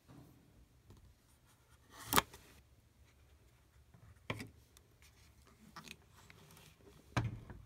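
Quiet handling of a Polaroid 600SE camera and a freshly ejected instant print being taken from the slot and laid down. There are soft rustles and three sharp clicks or knocks, about two seconds in, about four seconds in and near the end.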